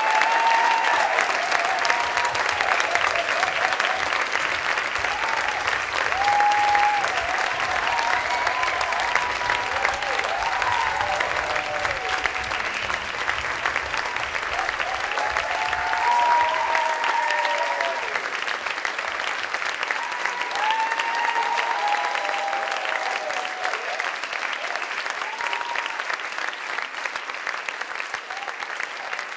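Audience applauding at length, with scattered whoops and cheers rising over the clapping; the applause slowly dies down over the last several seconds.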